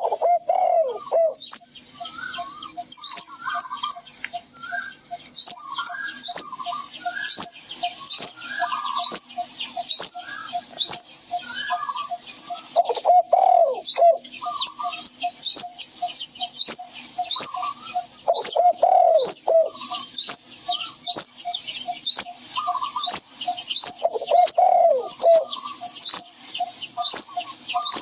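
Birds chirping in a dense chorus of short high calls over a steady, rapid pulsing note, with a lower, longer call breaking in every five or six seconds.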